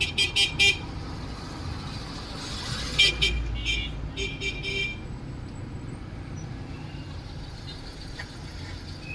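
Car horns honking in quick strings of short toots, about five in the first second and another run about three to five seconds in. Under them is the steady low rumble of slow, jammed traffic, heard from inside a car.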